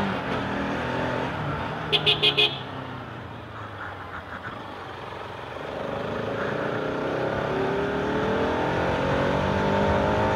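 Sport motorcycle engine easing off with falling pitch, then a horn beeping four times in quick succession about two seconds in; from about six seconds the engine pulls again with steadily rising pitch.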